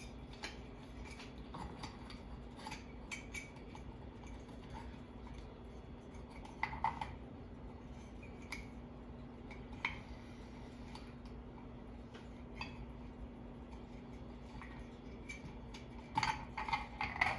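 Small metal parts of a ceiling fan light kit clicking and clinking as it is fitted by hand onto the fan's switch housing: scattered light taps, with a quick run of clinks near the end. A steady low hum runs underneath.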